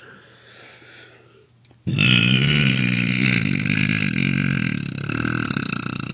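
A woman's long, loud belch that starts suddenly about two seconds in and runs on for over four seconds with a rough, pitched, croaky drone.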